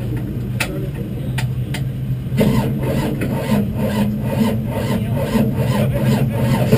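Super Street race car engine idling, with a few sharp clicks in the first two seconds. A little past two seconds in it grows louder and a rough rasping, rubbing pulse about three times a second joins it.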